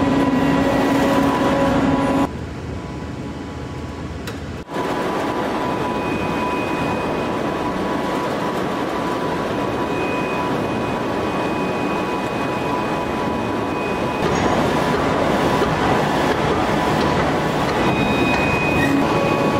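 Steady, dense machinery noise from an open-die forging press and manipulator working red-hot steel, with faint steady whining tones over it and no separate hammer blows. It drops for a couple of seconds about two seconds in, and grows a little louder about fourteen seconds in.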